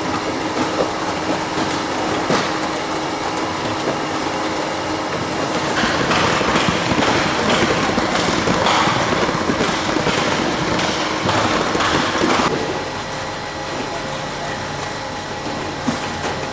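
Calibrex Novagram+ electronic fruit sorter running with peaches: the steady noise of its conveyor belts and electric drive motors, with scattered knocks. It grows louder about six seconds in and drops abruptly about twelve seconds in.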